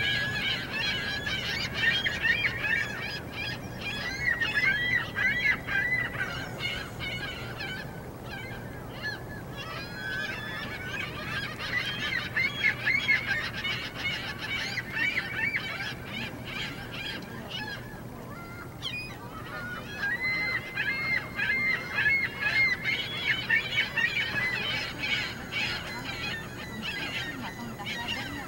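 A group of ring-billed gulls squawking, many calls overlapping almost without a break, thinning out briefly twice.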